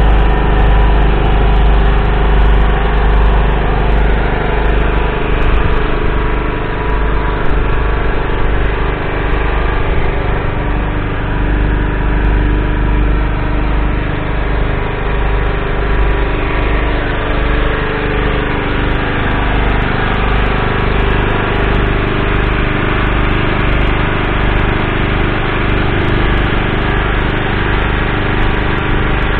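Valtra T254's 7.4-litre six-cylinder diesel engine idling steadily.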